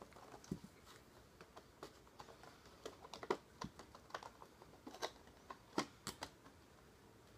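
Light, irregular clicks and taps of small makeup packaging being handled, as a cosmetics set is unpacked.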